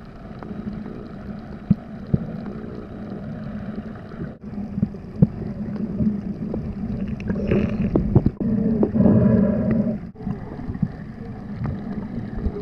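Muffled water noise through a waterproof camera housing, with a steady low hum and scattered clicks and knocks. It grows louder for a few seconds in the second half.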